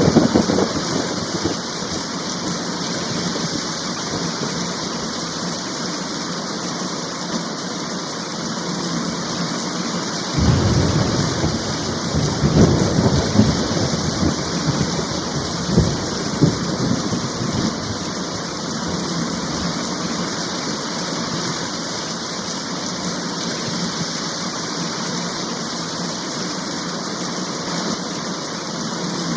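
Heavy rain falling steadily. A thunderclap rumbles at the very start. About ten seconds in, a longer roll of thunder rumbles with sharp cracks for several seconds, then dies away under the rain.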